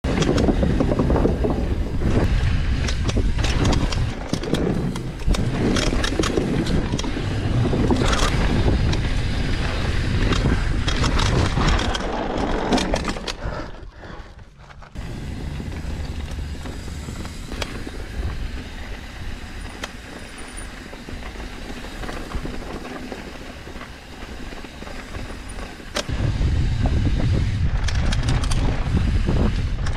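Mountain bike riding downhill on a dirt trail, heard through an action camera on the bike or rider: wind rushes over the microphone while the tyres roll and the bike rattles with frequent clicks and knocks. The noise dips sharply for a moment about halfway through and is loud again near the end.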